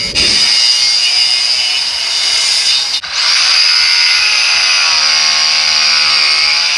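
Electric power saw cutting through a 2x4 to shape a table leg, running steadily, stopping briefly about three seconds in, then starting up again.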